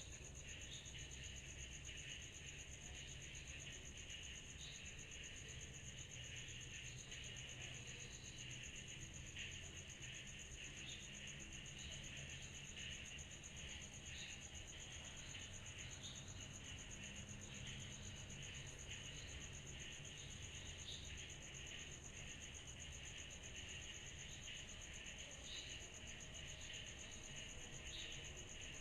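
Summer night chorus of cicadas: a continuous high-pitched trill with a busier layer of overlapping chirps below it, steady throughout. A faint low rumble sits underneath.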